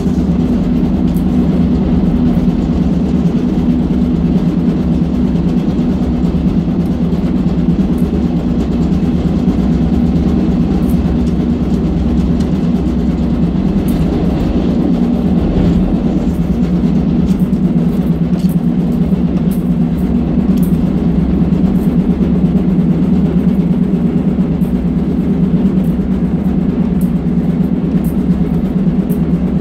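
Kansas City Southern de México diesel locomotive under way, heard from inside its cab: a steady, loud, low drone of the engine and wheels on the rails, with scattered light clicks and rattles.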